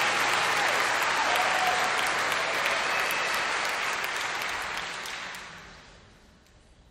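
Audience applauding, with a few whistles at first. The applause dies away about five to six seconds in, leaving the hall almost silent.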